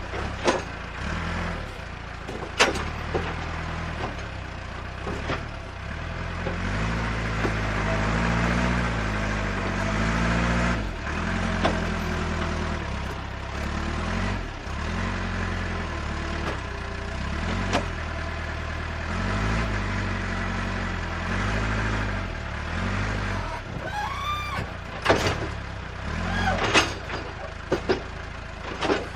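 Engine sound of RC construction machines (model excavator and truck) revving up and down again and again, with scattered sharp knocks and clicks and a short rising squeal about 24 seconds in.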